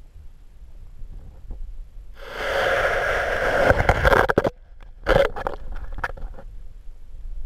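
Water moving around a camera held underwater in a tide pool, heard muffled through the camera: a low rumble, then about two seconds of loud rushing, bubbling hiss, followed by scattered knocks and scrapes as the camera bumps against the rock.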